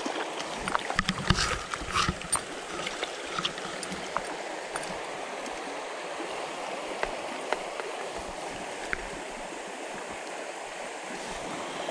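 Shallow river current flowing steadily over a rippling riffle, with a few short splashes and knocks in the first couple of seconds while a hooked smallmouth bass is brought to hand.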